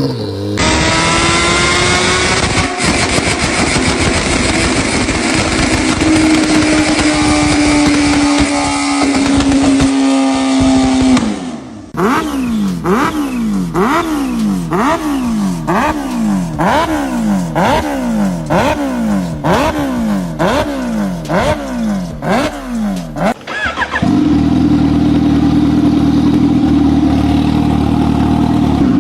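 A run of motorcycle sound clips: first an engine running hard with its pitch rising and then slowly falling, then a series of quick revs rising and dropping back about once a second, then a steady held tone to the end.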